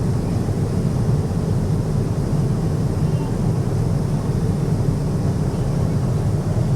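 Passenger jet airliner cabin noise in flight: a steady low rumble of engines and rushing air with no change in pitch or level.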